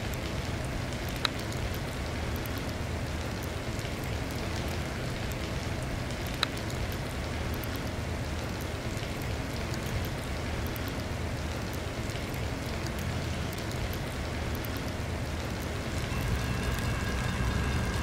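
Steady hiss of light rain falling outdoors, with a low rumble underneath and two sharp ticks. Near the end the sound gets louder and a few steady high tones come in.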